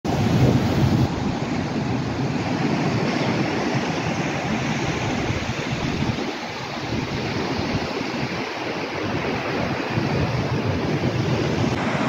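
Sea surf breaking and washing up on a sandy beach in a steady rush, with wind rumbling on the microphone, strongest in the first second.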